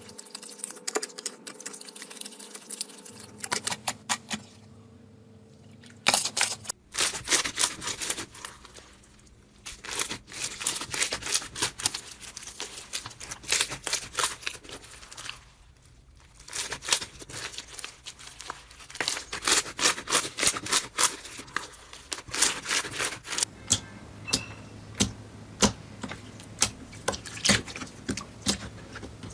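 Slime being squished and pressed by hand, giving dense, irregular crackling clicks and pops, with short lulls between handfuls.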